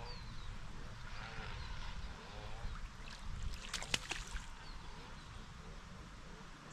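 Outdoor ambience by open water: a low wind rumble, faint wavering calls of waterfowl twice, and a quick cluster of sharp clicks about four seconds in.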